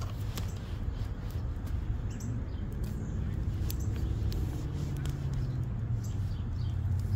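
Outdoor ambience: small birds chirping faintly over a steady low rumble, with scattered sharp clicks.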